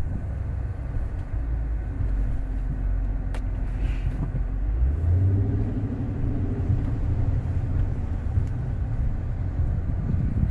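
Dodge Charger SRT's 6.4-litre HEMI V8 breathing through a Corsa exhaust at low speed, a steady low rumble heard from inside the car that swells briefly about five seconds in.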